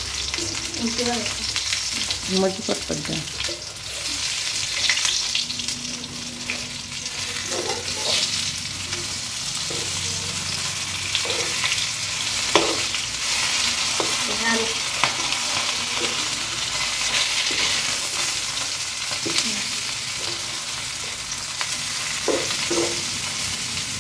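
Marinated small whole rohu fish sizzling steadily in hot oil in a wok, with a metal spatula scraping and tapping against the pan now and then as the fish are moved and turned.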